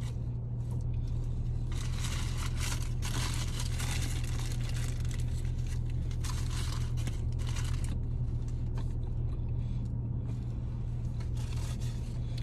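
Paper food wrapper crinkling and tearing in several spells as a fast-food burger is unwrapped, strongest in the first half. A steady low hum from the car runs underneath.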